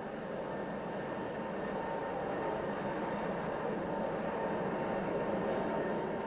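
Avrocar's Continental J69 turbojet engines running steadily: an even rushing jet noise with a constant high whine over it, building slightly in loudness.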